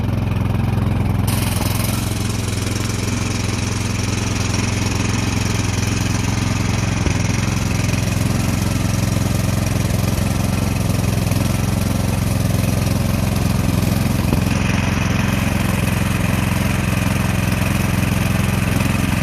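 Remington Powermore 243cc single-cylinder snowblower engine running steadily after its carburetor was cleaned, so the no-start is cured. Extra higher-pitched noise joins the engine about a second in and grows stronger near the end.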